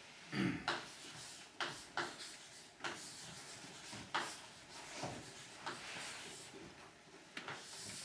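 Chalk writing on a blackboard: irregular sharp taps and short scrapes as the letters are written.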